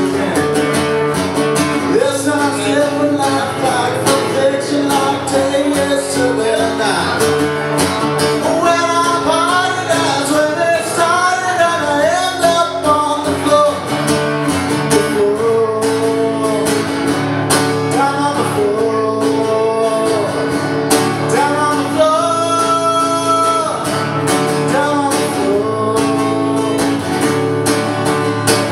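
A male singer accompanying himself on a strummed acoustic guitar: steady chords with sung phrases over them.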